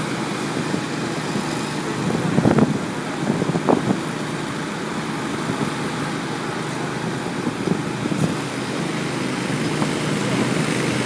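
Engines running steadily: a firefighters' portable petrol water pump pumping floodwater, and a recovery truck idling. A couple of brief louder knocks come between two and four seconds in.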